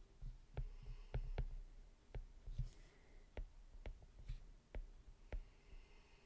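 Faint, irregular clicks of a stylus tip tapping the glass of a tablet screen during handwriting, about a dozen in all.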